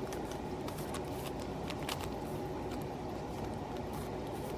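A well-used 3x3 Rubik's cube being turned by hand: faint, irregular clicks of its layers rotating, over a steady background hiss.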